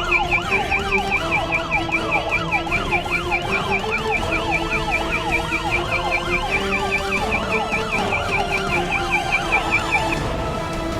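Electronic intruder alarm siren sounding, set off by its motion sensor as intruders enter: a fast high warble over a lower tone that sweeps down again and again, about twice a second. The high warble cuts off near the end.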